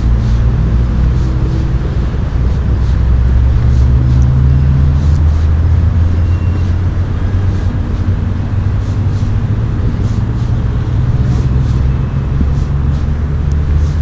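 Steady low engine rumble that rises and settles slightly in pitch partway through, over a wash of wind and road noise.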